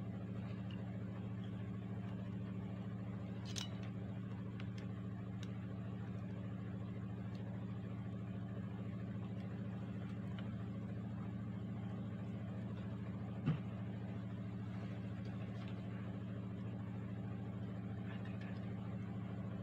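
A steady low hum runs under a few small clicks from handling tools and the circuit board, with one sharper click about two-thirds of the way through.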